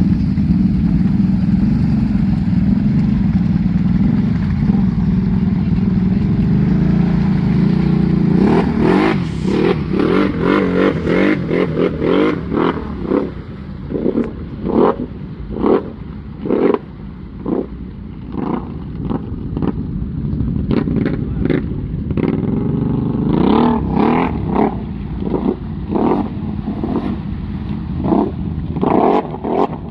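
ATV engine running steadily. From about eight seconds in it gives way to many short, sharp bursts of revving and clatter.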